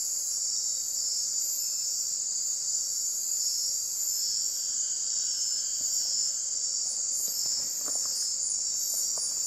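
Dense nocturnal tropical-forest insect chorus: a steady, high-pitched shrill trilling that fills the air, with a few faint ticks near the end.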